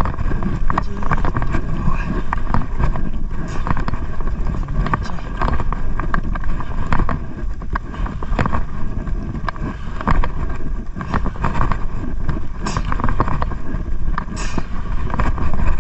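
Wind rumbling on the microphone, with frequent clicks and knocks from a baitcasting reel being handled and cranked.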